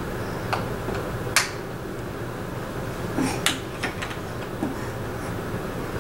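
Wooden toy pieces knocking together as a baby handles them: a few short, sharp clacks, the loudest about a second and a half in and a quick cluster a little after the middle, over a steady low background hiss.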